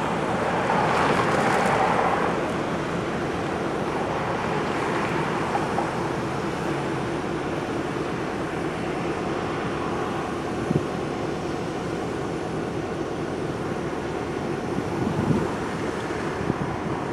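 Diesel locomotive engine running steadily at a standstill, with road cars driving past over the crossing; a passing car is loudest in the first two seconds.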